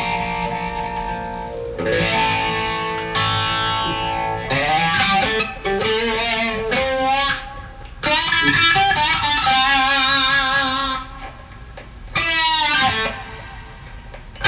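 Reverend Flatroc electric guitar played through a Skreddy Screwdriver overdrive pedal and amp: overdriven lead phrases with long held notes, bends and wide vibrato, broken by short pauses.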